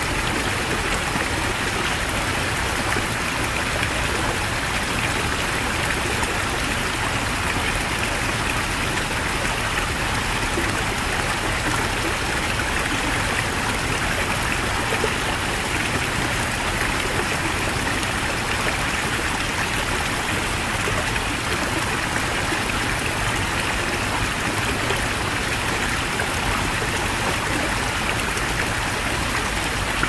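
Heavy mountain stream running: a steady, even rush of water that does not change.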